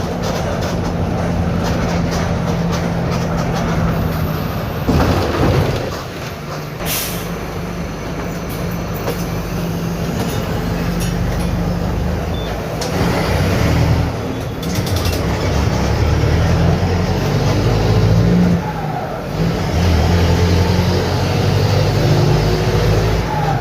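Mercedes-Benz OF-1721 BlueTec 5 bus's diesel engine running as the bus drives, its exhaust holed. The engine note shifts in pitch and grows louder in stretches, with a short burst of hiss about five seconds in.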